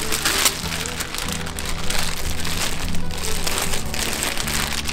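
Clear plastic bag crinkling as it is handled and pulled away from a folded T-shirt, over steady background music.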